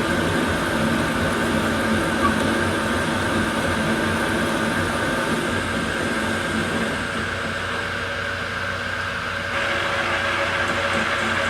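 Metal lathe running steadily with a continuous mechanical whir and hum; the tone grows brighter and a little louder near the end.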